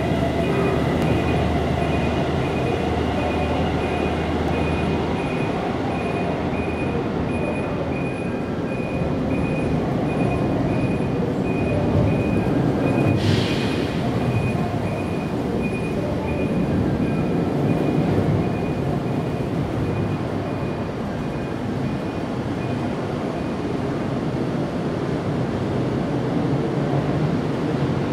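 Steady background rumble and hiss, with a faint high tone pulsing on and off through most of it and a short hiss about thirteen seconds in.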